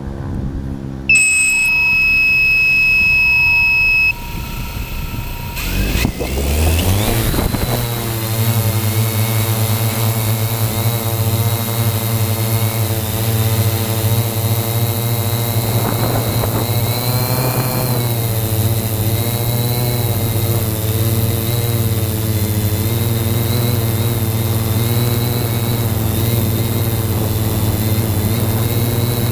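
A loud, steady electronic beep for about three seconds, then the motors and 15-inch propellers of a 3DR Y6 coaxial hexacopter spin up with a rising whine about six seconds in and the craft lifts off and climbs away. The propellers then settle into a steady drone whose pitch wavers slightly.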